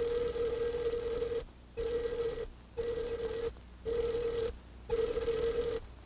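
Telephone bell ringing: one long ring, then four shorter rings about a second apart.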